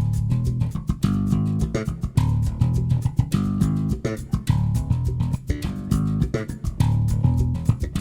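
Bass guitar and percussion duo playing northeastern Brazilian music: plucked bass notes, carrying both bass line and melody, over a steady percussion beat.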